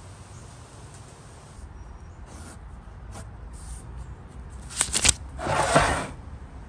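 Faint scratching of a pencil writing on a sticky note. About five seconds in come a few sharp clicks, then a short, louder burst of noise.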